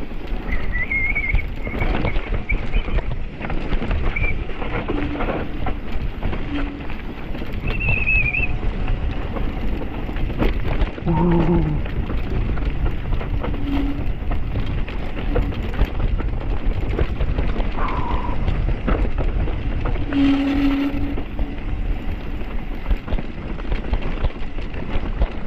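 Wind rushing over the microphone while riding a mountain bike on rough ground, with the bike's rattles and knocks throughout. There are a few short high chirps and two brief low calls about 11 and 20 seconds in.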